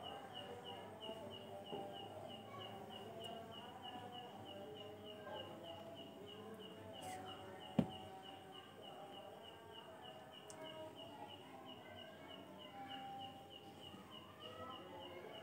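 An insect chirping steadily: short, high chirps at one pitch, about four a second. A single sharp click just past halfway.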